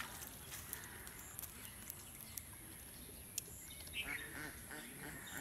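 Short animal calls, several bunched about four seconds in, over a steady background hiss with a constant high tone and a few light clicks.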